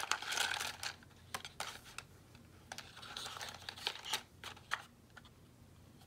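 Wooden matchsticks handled in and taken from their small box: a rustling at the start, then scattered light clicks as the sticks knock together and are set down.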